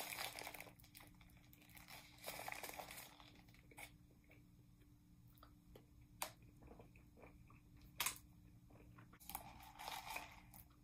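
A bite into a sausage, egg and cheese croissant sandwich, with crunching and its paper wrapper crinkling, then soft chewing. Two sharp clicks come in the middle, and a rustle near the end.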